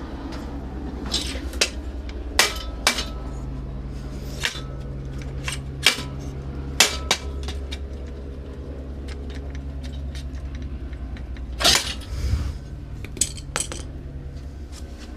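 Irregular metal clinks and clicks of hand tools and bicycle parts being handled, with a louder clanking scrape about twelve seconds in, over a steady low hum.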